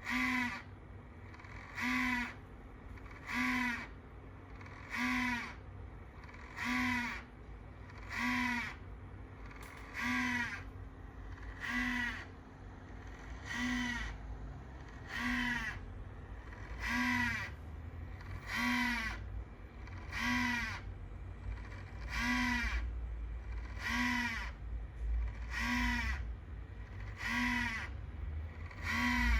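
Abnormal noise from a PC with an ASRock Taichi motherboard: a short pitched squawk that repeats at a machine-steady pace, about once every 1.7 seconds, over a low hum.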